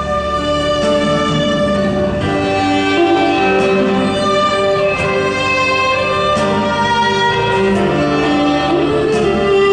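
Slow instrumental music led by bowed strings, with long held notes that change every second or two.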